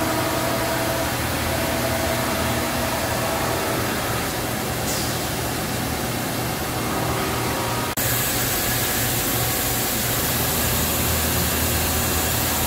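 Steady hum and hiss of running machinery, with a constant low drone and a few faint steady tones; about two-thirds of the way through the sound dips for an instant and a brighter high hiss comes in and stays.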